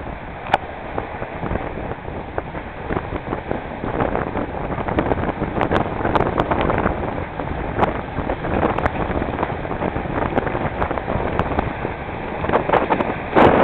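Water rushing and splashing against the hulls of a small sailing multihull under way, with wind buffeting the microphone and many short slaps of spray; it gets louder just before the end.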